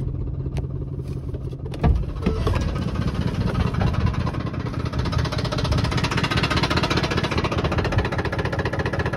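Pickup truck engine idling, first heard from inside the cab. About two seconds in the driver's door unlatches with a sharp clunk, and the idle then comes through louder and clattery through the open door.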